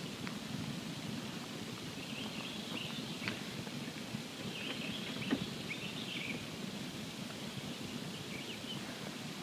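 Campfire burning with a steady low rush and a few sharp pops and crackles, joined by faint high twittering a couple of times.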